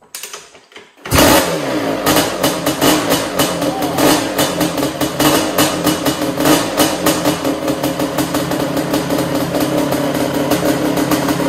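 Suzuki LT500R Quadzilla's 500 cc single-cylinder two-stroke engine kicked and catching about a second in on its first start after the build, then running loud and steady with rapid, crisp firing.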